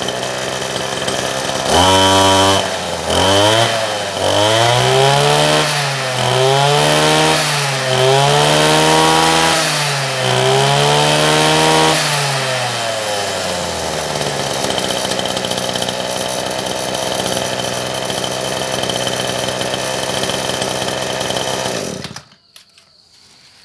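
Kawasaki TJ27 brush cutter's 27 cc two-stroke engine (34 mm bore) running just after being pull-started. It revs up and down in about five slow swells, then idles steadily until it cuts off abruptly about 22 seconds in.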